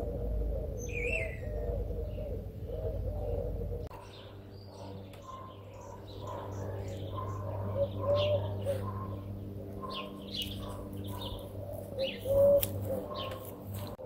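Birds calling: many short high chirps with lower wavy calls. A low rumble under the first few seconds stops abruptly, and one louder call stands out near the end.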